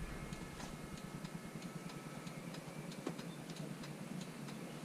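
Regular light ticking, about three clicks a second, from the truck's electrics with the ignition on. A faint high whine under it stops about two seconds in.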